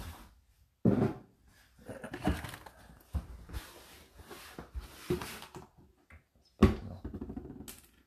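Irregular knocks, clicks and rustling from hands handling things at an open dishwasher door, with no machine running; the loudest knocks come about a second in and again a little past the middle.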